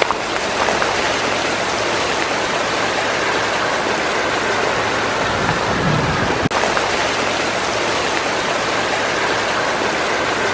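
Meltwater from the melting Athabasca Glacier running fast down a narrow channel cut into the ice, a steady rush of water with a momentary break about six and a half seconds in.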